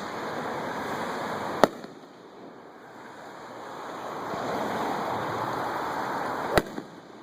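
Display fireworks shells bursting: two sharp, loud bangs about five seconds apart, the second followed by a smaller crack, over a steady rushing hiss that swells between them.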